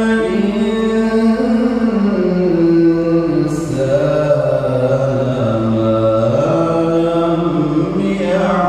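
A male Quran reciter chanting in the melodic tilawah style into a microphone: one long unbroken phrase of held, ornamented notes that slowly step down in pitch, dip low past the middle and climb back up near the end.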